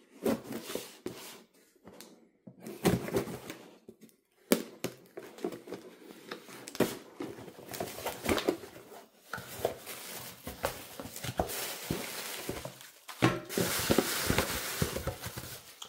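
Serrated folding knife slicing through packing tape on a cardboard box, with scrapes and knocks as the cardboard flaps are pulled open. Near the end, crumpled plastic bag packing rustles and crinkles as a hand digs through it.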